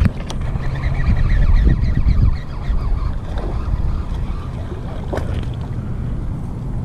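Wind buffeting the microphone in a low, steady rumble, over the splashing of a hooked bass being reeled in to the bank; a short sharp splash or knock comes about five seconds in.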